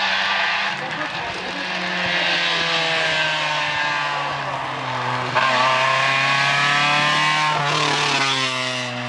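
Rally car engine pulling hard on a wet road, its pitch sliding slowly down and then picking up again as the driver works through the bends. It runs over a steady hiss of tyres and spray, and is loudest in the second half.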